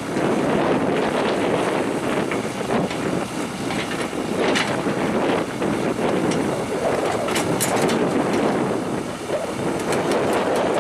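Heavy machinery running in a dense, steady noise with scattered clanks, and wind buffeting the microphone.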